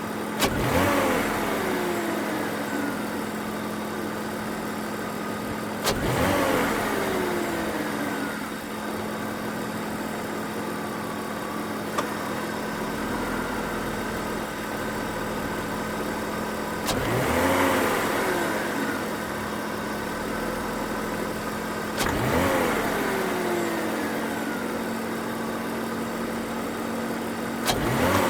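BMW E39's M54B22 2.2-litre straight-six idling and blipped sharply about five times, the revs rising and falling back each time. Each stab of the throttle opens with a sharp knock, which the owner likens to detonation, with no fault codes stored.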